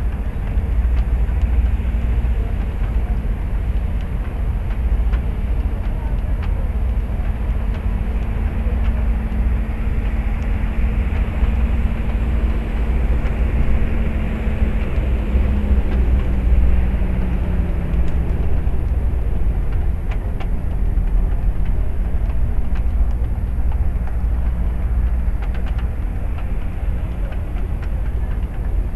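A ship's engine rumbling steadily, with a faint hum that drops in pitch about fifteen seconds in.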